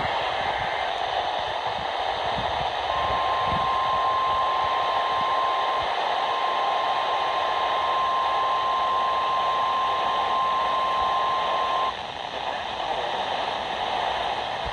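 Weather radio receiver with heavy static hiss. About three seconds in, a steady single-pitch alarm tone just above 1 kHz starts; it is the NOAA Weather Radio 1050 Hz warning alarm tone. The tone holds for about nine seconds and then cuts off abruptly.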